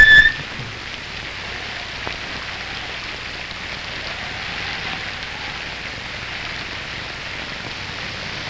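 Steady hiss of rain, even throughout, with a brief sharp sound carrying a short high tone right at the start.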